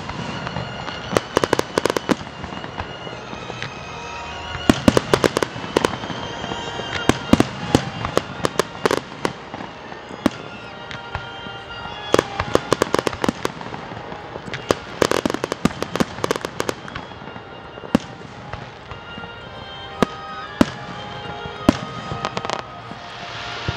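Aerial fireworks shells bursting in rapid volleys of sharp bangs and crackles, the volleys a few seconds apart, with the biggest clusters about five and fifteen seconds in.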